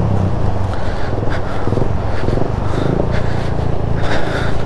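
Suzuki GS 150SE single-cylinder motorcycle engine running steadily at low revs on a rough off-road track, with a few short knocks.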